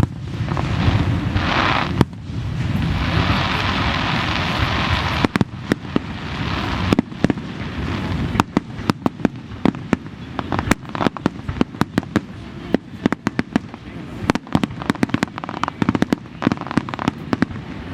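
Aerial fireworks going off: a steady hiss with a few sharp bangs for about the first seven seconds, then a fast, dense string of sharp cracks and pops.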